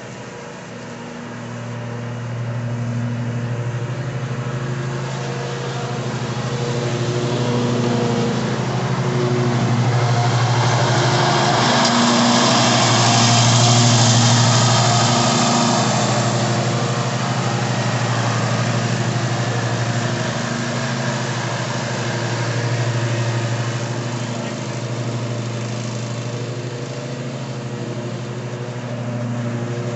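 Ariens Ikon XD 52-inch zero-turn riding mower running with its blades cutting grass: a steady engine hum with the whoosh of the deck, growing louder as the mower passes close by from about ten to sixteen seconds in, then easing off again as it moves away.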